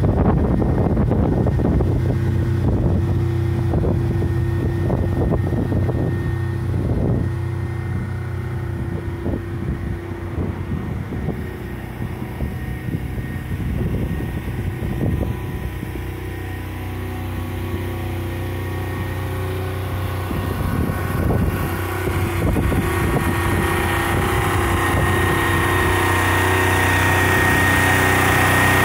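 A generator's diesel engine runs steadily at constant speed, with wind buffeting the microphone. The sound grows louder near the end, and a steady high whine comes through over the engine.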